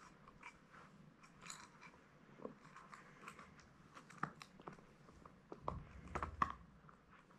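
Beagle puppy gnawing a chew bone: faint, irregular crunching and clicking of teeth on the bone, with a few louder crunches about six seconds in.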